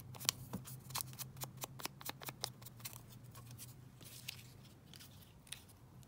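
Ink being dabbed onto paper: quick light taps, about five a second, thinning out after about three seconds, over a steady low hum.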